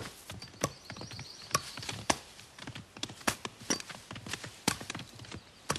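A series of irregular sharp knocks, roughly two a second.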